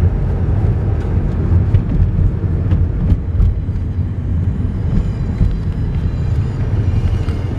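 Steady low rumble of a car driving, road and engine noise, with a few faint clicks.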